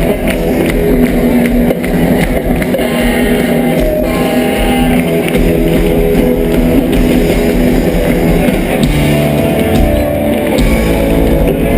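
Loud live rock music: electric guitar over a drum kit, playing without a break.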